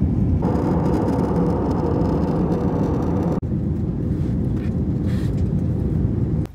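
Jet airliner cabin noise: a loud, steady low rumble of engines and airflow, changing abruptly about half a second and again about three and a half seconds in.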